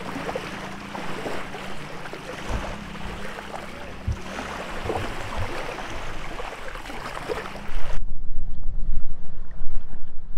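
Small waves lapping and washing onto a sandy shore. About eight seconds in, it cuts to much louder wind buffeting the microphone.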